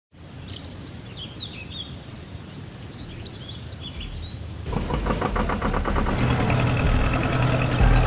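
Birds chirping and trilling, then about halfway in a fishing boat's engine starts chugging with a low rumble that grows louder.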